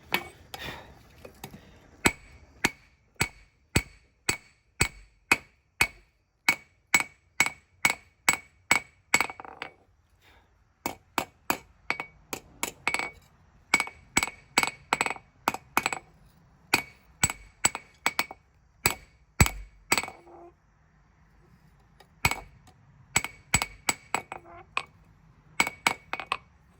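Blacksmith's hammer striking hot spring steel on an anvil, drawing out a knife tang: steady blows about two a second, each with a bright metallic ring, with two short pauses.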